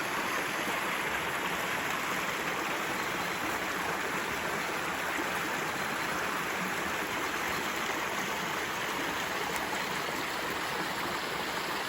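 Forest stream running steadily, an even rush of water with no breaks.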